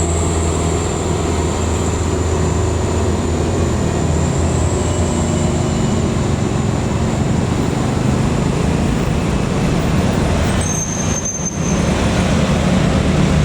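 Heavy diesel road vehicle running steadily with a low engine drone and road noise, briefly dropping about eleven seconds in.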